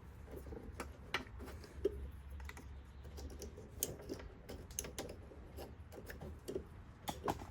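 Irregular light clicks and taps of a new mower blade control cable and its spring being handled and fed down through a Toro walk-behind mower, over a faint low hum.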